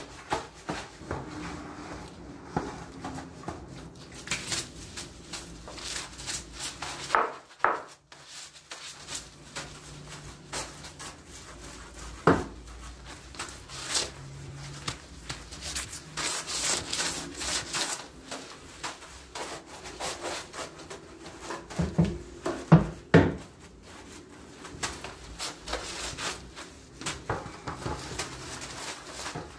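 Stiff-bristled floor brush scrubbing a wet, soapy tiled floor in repeated strokes, with a few sharper knocks now and then.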